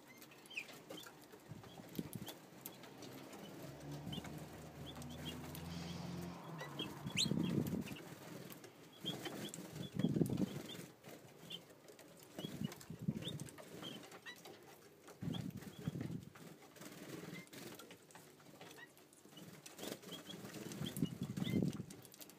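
Cock British bullfinches fluttering on and off a hand to feed, their wings flapping now and then a few seconds apart, with many faint short high notes or clicks in between.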